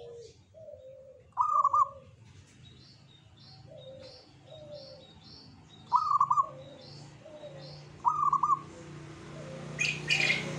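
Zebra dove (perkutut) cooing: three loud phrases of short ringing notes, with softer, lower coos between them.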